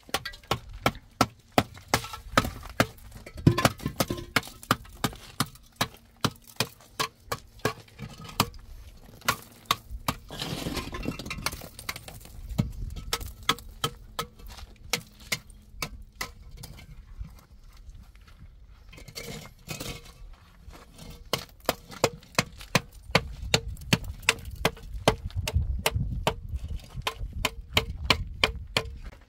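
Concrete block struck again and again with a metal tool, sharp ringing clinks about two a second, with short pauses in the middle: a mason chipping the block to size.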